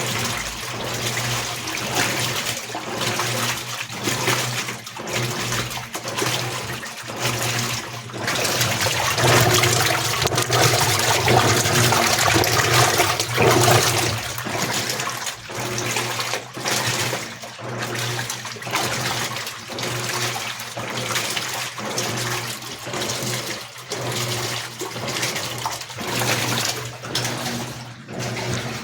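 Electrolux Premium Care 15 kg washing machine (LEC15) in its second rinse: water sloshing and churning in the drum over a steady motor hum, swelling and dipping about once a second as the wash action reverses. It is loudest in the middle.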